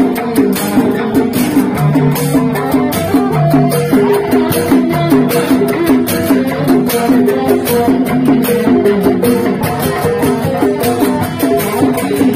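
Live Sundanese reak procession music: large hanging gongs struck with padded mallets, drums and cymbals keeping a fast, dense beat under a busy, wavering melody line.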